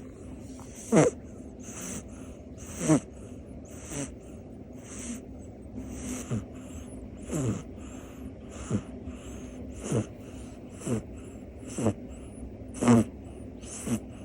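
A sleeping cat snoring, a breathy snore about once a second, each one falling in pitch.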